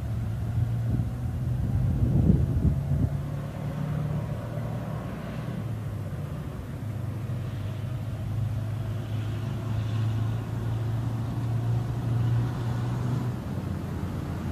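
A vehicle engine running steadily with a low hum, with a louder stretch of knocks about two seconds in.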